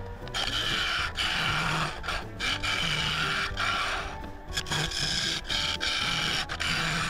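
Wood lathe spinning a claret ash bowl while a tool or abrasive scrapes its inside, making a steady rasping hiss broken by several brief pauses.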